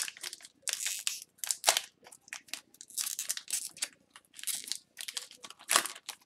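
Foil wrapper of a hockey card pack being torn open and crinkled by hand, in a string of short, irregular crackles.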